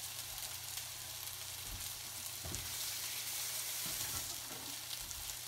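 Steady sizzling hiss of food frying in hot oil on the stove, with a low steady hum underneath and a couple of soft knocks.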